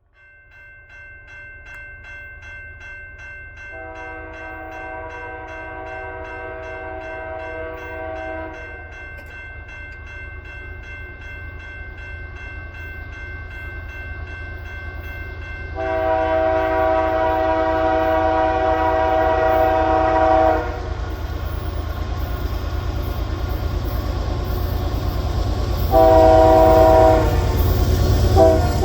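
Approaching diesel freight train's air horn sounding a chord in long blasts: one about four seconds in, a louder one in the middle, a short one later and quick blasts near the end. Underneath, the rumble of the GE diesel locomotives grows steadily louder as the train nears, with a steady high ringing tone through the first half.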